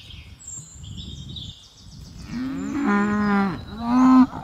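Cows mooing: one long moo about two seconds in, then a shorter, louder moo near the end.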